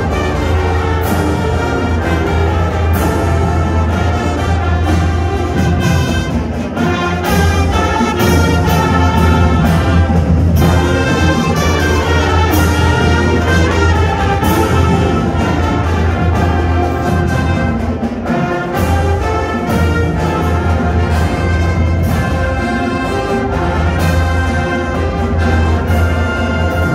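Marching band playing: sousaphones, trumpets, trombones, saxophones and flutes over a drumline, with frequent sharp drum strikes.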